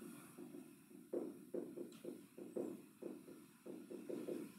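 Dry-erase marker writing on a whiteboard: a run of short, faint strokes, about two or three a second.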